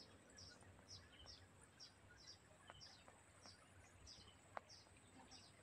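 Near silence: faint outdoor ambience with a small high chirp repeating about twice a second, and a single faint click about four and a half seconds in.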